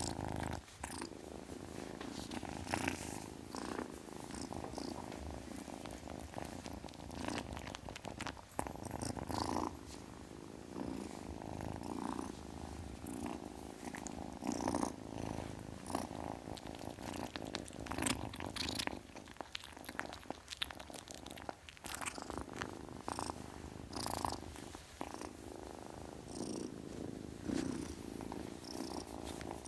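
Kitten purring continuously, the purr swelling and easing every second or two, with a few short clicks over it.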